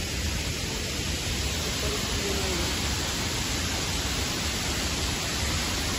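Steady rushing noise of Shiraito Falls, a wide curtain of many small cascades, and the stream below it.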